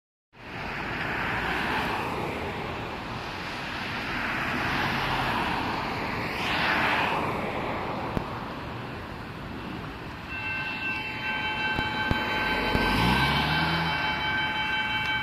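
Road traffic passing a railroad crossing. About ten seconds in, the crossing bell starts: a fast, high-pitched ring that holds steady, the warning that the crossing has activated for an approaching train as the gates come down.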